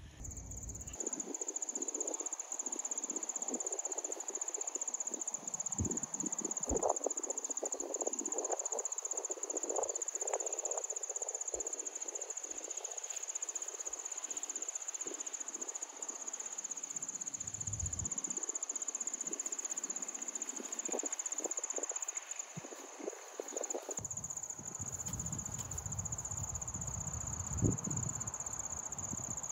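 A steady, high-pitched trilling chorus of insects, unbroken throughout. Over most of it come soft irregular rustles and knocks of someone moving about, which stop about five seconds before the end.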